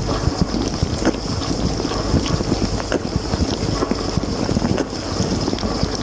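Water spraying and splashing over the racks and dishes of a running LG dishwasher in its wash cycle, heard from inside the tub: a steady rushing with a low rumble underneath and scattered small ticks of drops and spray striking.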